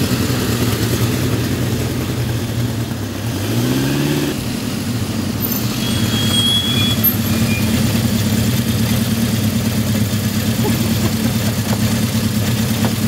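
Motorcycle engines running at low speed, with one revving up in a short rising sweep about four seconds in.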